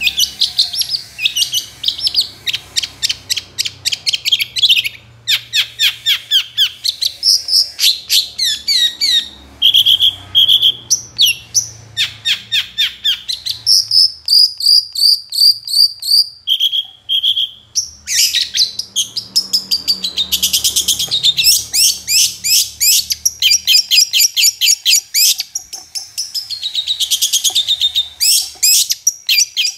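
Caged long-tailed shrike (cendet) singing non-stop: fast runs of short, sharp notes, broken around the middle by a few held whistles.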